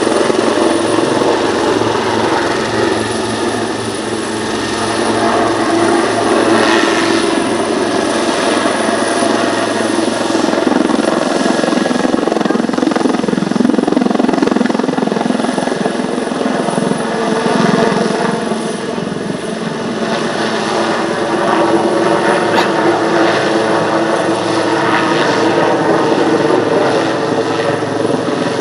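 Leonardo Wildcat HMA.2 helicopters flying a display, rotors beating and turbine engines running continuously; the loudness swells and eases as they manoeuvre.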